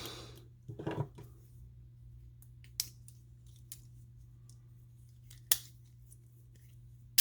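A few sharp metallic clicks and taps, a couple of seconds apart, from Leatherman multitools being handled, over a steady low hum.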